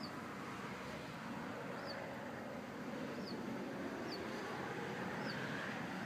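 A small songbird repeating a short, high, falling chirp about once a second, six or so times, over faint steady background noise.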